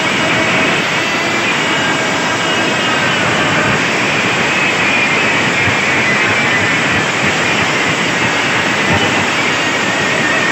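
Massed DJ sound-system speakers blasting at full volume over a crowd, heard as a steady, dense roar with no clear beat, with faint wavering high tones running through it.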